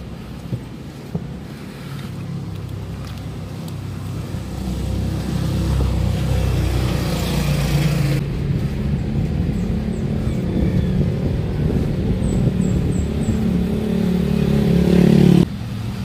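A motor vehicle's engine drawing closer, its hum growing steadily louder over several seconds, then cutting off suddenly near the end.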